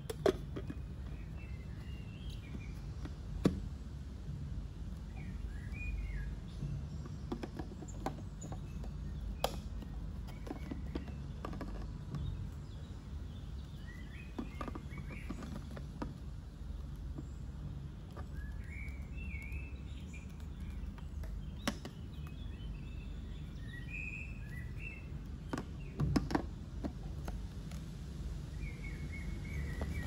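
Scattered plastic clicks and knocks as the clear dust cup and cyclone filter of a Jimmy BX7 Pro vacuum cleaner are handled and twisted together at the lock, over a steady low background hum. Short bird chirps sound faintly now and then.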